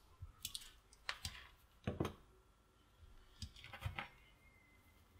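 A handful of faint clicks and light taps, spaced about half a second to a second apart, as multimeter test probes are laid down on a silicone mat and a small cable with a plug is picked up.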